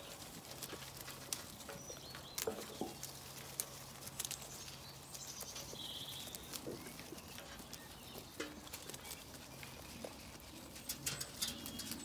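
Zwartbles sheep browsing a leafy tree branch: leaves rustling and crisp crunching clicks as they strip and chew the leaves.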